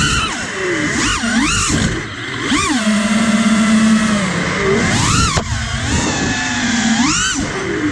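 FPV freestyle quadcopter's brushless motors whining, the pitch sweeping sharply up and down several times with the throttle.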